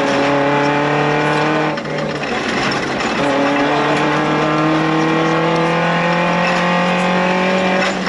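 Suzuki Jimny's 1.3-litre 16-valve four-cylinder engine heard from inside the cabin, pulling hard under load with the revs slowly climbing. The engine note drops and breaks briefly about two seconds in, then climbs steadily again until the revs fall away again at the very end.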